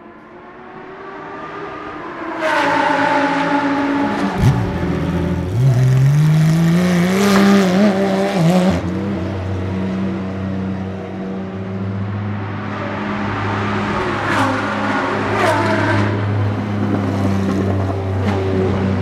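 Porsche 992 GT3 R's naturally aspirated 4.2-litre flat-six race engine idling, then pulling away about five seconds in with the revs rising, and settling to a steady note as the car drives slowly down the pit lane.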